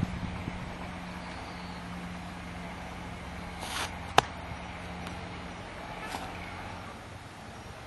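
A martial artist's form movements over a steady low hum. About four seconds in there is a short rush of noise, then one sharp smack, the loudest sound, and a fainter swish about two seconds later.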